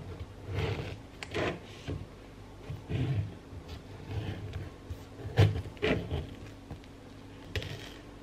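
Knife cutting a mango on a chopping board: irregular soft knocks and scrapes as the blade goes through the fruit and taps the board, the loudest about five and a half seconds in.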